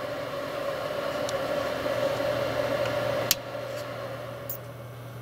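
Steady electrical hum with a fainter higher tone that fades out, and one sharp click a little over three seconds in.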